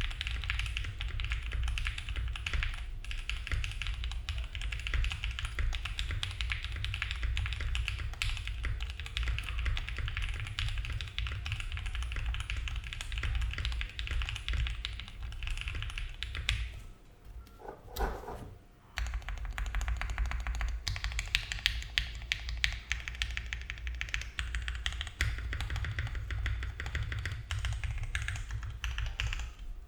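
Fast, continuous typing on a Mode Envoy mechanical keyboard with lubed Gateron Cream Soda switches, an FR4 plate and GMK keycaps: a dense run of key clicks that pauses briefly about two-thirds of the way through.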